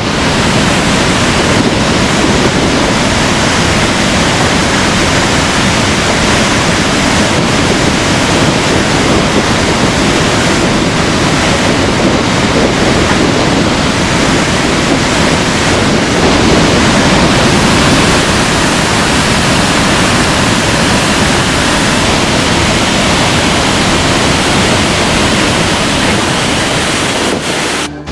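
Waterfall roaring close by, with gale-force wind buffeting the microphone and blowing spray; a loud, steady rush that cuts off abruptly near the end.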